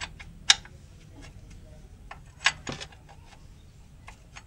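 Sharp metallic clicks and clinks of a box-end wrench being worked on the oil-pan drain plug of a BMW E36's M43 engine. The clicks are scattered, the loudest about half a second in and two more strong ones about two and a half seconds in.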